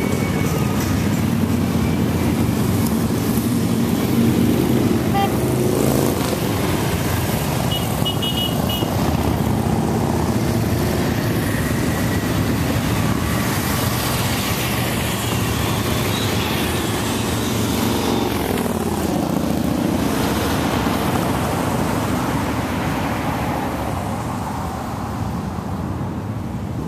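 A line of motorcycles, cruisers among them, passing one after another, with a box truck's engine going by in the middle of the run. The engine noise thins out near the end as the road empties.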